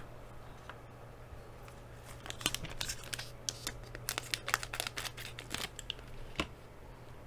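Trading-card pack wrapper crinkling and being torn open: a dense run of sharp crackles starting about two seconds in and stopping shortly before the end.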